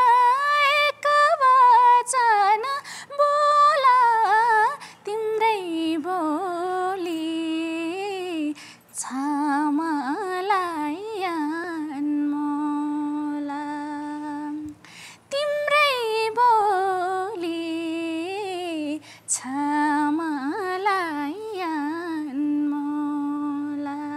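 A woman singing a slow, sad Nepali song unaccompanied, in phrases with ornamented turns of pitch and long held notes ending each line.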